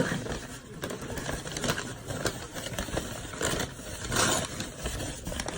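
Packing paper and tape crinkling and rustling as a wrapped plant parcel is opened by hand, in irregular handling noises with a louder rustle about four seconds in.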